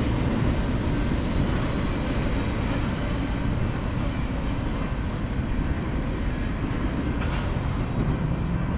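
A train passing close by: a steady rumble of rail cars rolling on the track.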